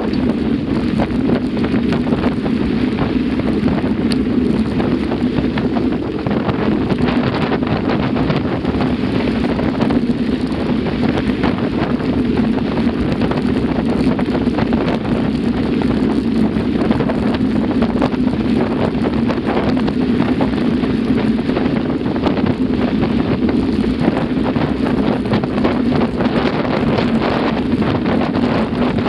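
Steady wind rushing over an action camera's microphone on a moving mountain bike, with the tyres crunching and rattling over loose gravel throughout.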